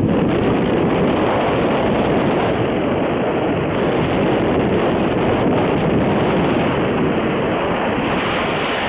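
Steady wind buffeting the microphone: a loud, even rushing noise with no clear tone and no change throughout.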